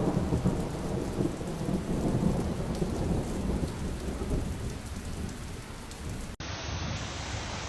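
Heavy rain with a low, rolling rumble of thunder. About six seconds in the sound cuts out for an instant, and a duller rain noise carries on.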